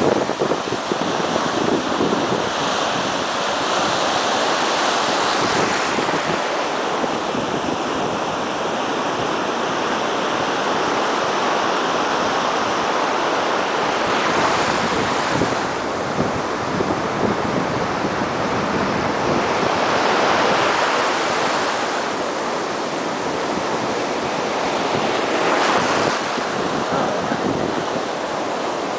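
Ocean surf breaking and washing up the beach, foamy water rushing around the shallows, with louder surges of incoming waves every five or six seconds.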